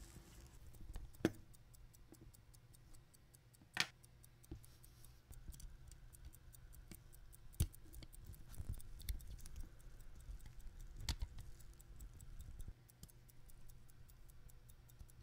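Illinois Bunn Special pocket watch movement ticking steadily, about five ticks a second, with a few louder clicks and knocks from handling it.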